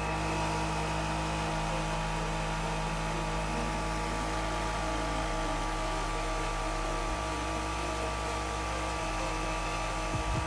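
Homemade evaporative air cooler running, its electric fan giving a steady hum over a rush of air.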